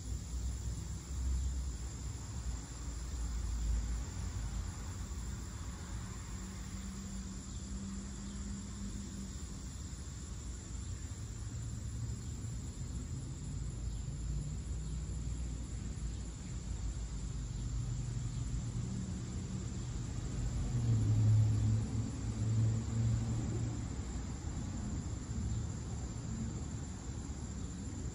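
Cicadas droning steadily, high-pitched, over a low rumble of passing vehicles that swells about three-quarters of the way through.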